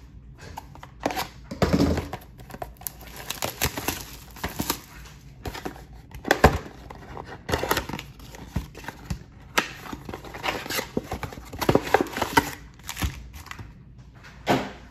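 A cardboard trading-card mega box being opened by hand: irregular crinkling and tearing of its wrapping, cardboard flaps rubbing and card packs being pulled out and handled, with many sharp clicks and taps.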